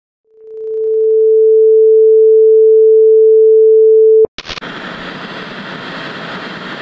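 A TV test-card tone: one steady pitch that fades in over the first second and cuts off suddenly about four seconds in. It is followed by the even hiss of analogue TV static.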